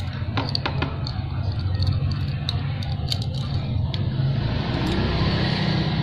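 Small steel saw chain clicking and rattling as its links are handled and untangled, over a steady low rumble.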